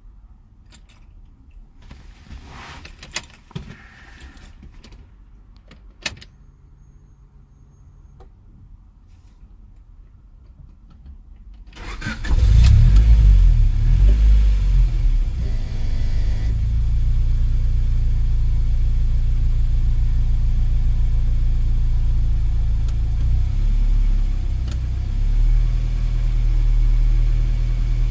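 A few scattered clicks and knocks, then about twelve seconds in a car engine is cranked, catches and settles into a steady idle.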